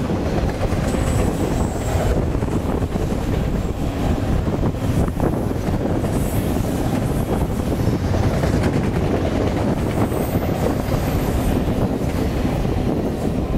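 Autorack freight cars rolling past at close range: a steady rumble and clatter of steel wheels on the rails, with a faint high-pitched squeal of the wheels twice, about a second in and again near the ten-second mark.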